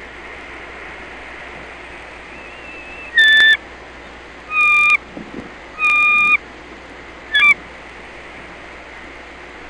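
Bald eagle calling: four loud, high whistled notes, roughly a second and a half apart, each held at a steady pitch for under half a second, over a steady hiss.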